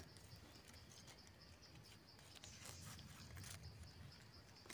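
Near silence: a faint, steady chirring of insects, with a few soft clicks and rustles about halfway through.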